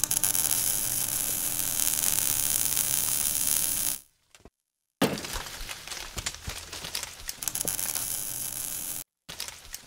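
Logo-intro sound effect: a crackling electrical buzz with a steady hum, cut off about four seconds in. Then a sudden hit and more crackling with many sharp clicks, stopping about nine seconds in, with a short crackle at the very end.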